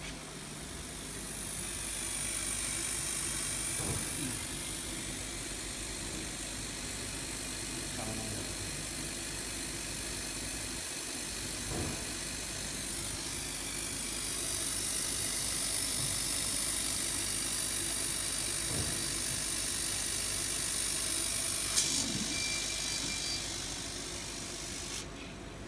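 CO2 laser cutting machine running a cut in clear acrylic sheet: a steady high hiss over a low machine hum, dipping briefly about halfway through. There is a sharp click a few seconds before the end, and the hiss then cuts off suddenly.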